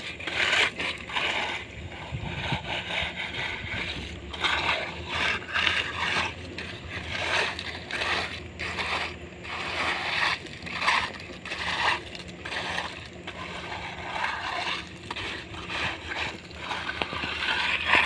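Repeated rough scraping strokes, about one to two a second, of hand tools working wet concrete, over a steady low engine hum.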